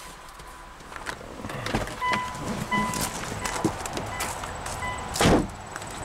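A car's interior warning chime beeping at intervals over rustling and small knocks of someone moving about, then a loud thump about five seconds in.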